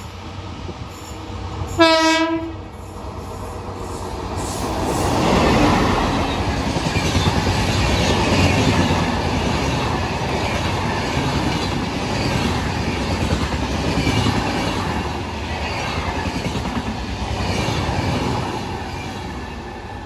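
A WAP7 electric locomotive sounds one short horn blast about two seconds in. Then the passenger train passes close by at speed, its coaches rumbling and its wheels clattering over the rail joints, easing off near the end.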